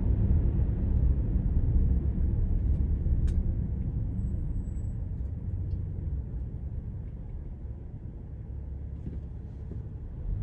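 Car cabin road and tyre noise on a wet road, a low rumble and hiss that fade steadily as the car slows to a stop.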